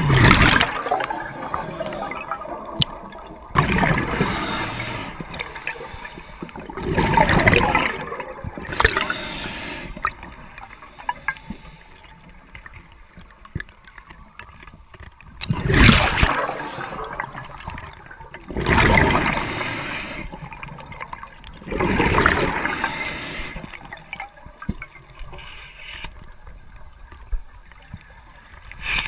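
Scuba regulator exhaust recorded underwater: about seven rushing, gurgling bursts of exhaled bubbles, each about a second long and a few seconds apart, with a longer gap near the middle. Faint hiss and small clicks lie between the bursts.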